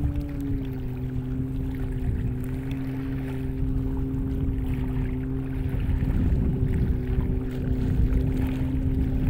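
A motor drones at a steady pitch over a low rumble, its pitch wavering slightly near the start.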